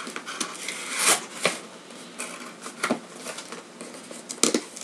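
Cardboard shipping box and packing material handled and opened by hand: irregular rustling and crinkling with several sharp crackles, the loudest about a second in and near the end.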